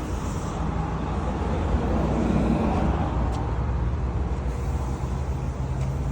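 A vehicle engine running steadily at idle, a low even hum with a noisy mid-range haze.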